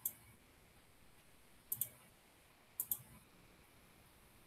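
Computer mouse buttons clicking: one click at the start, then two quick pairs of clicks about two and three seconds in.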